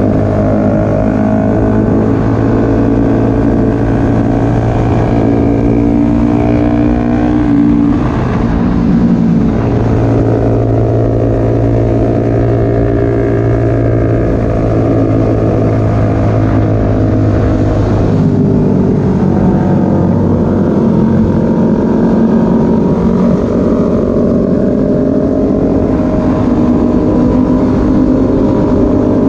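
Honda CBR250RR motorcycle engine running under way, heard from on board, its pitch shifting as the throttle changes about a third and two thirds of the way through.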